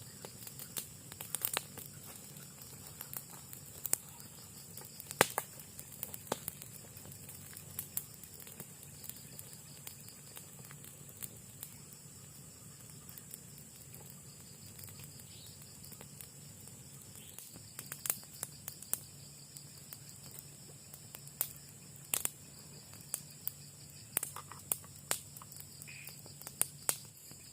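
Night-time forest ambience: insects, crickets among them, chirring on a steady high note, with scattered sharp clicks and crackles throughout.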